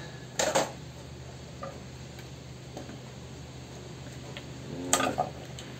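A few knocks and clicks of metal parts being handled and set down on a workbench, one sharp knock about half a second in and another short clatter near the end, over a steady low hum.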